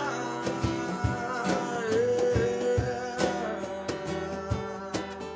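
Band music with guitar and drum hits, playing an instrumental passage.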